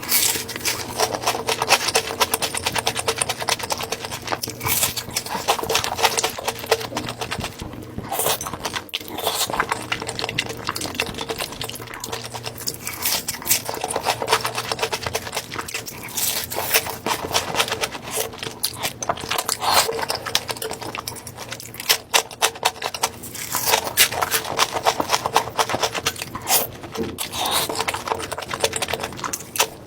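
Close-miked eating: chewing with dense, rapid crunchy clicks and wet mouth sounds, louder in bursts every few seconds.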